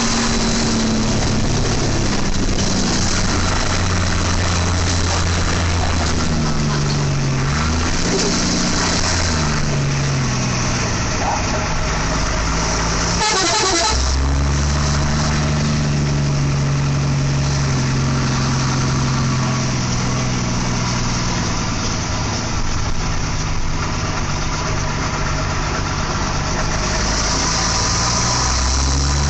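A bus's multi-tone 'telolet' horn playing a tune in held notes that step up and down, over the noise of traffic and engines.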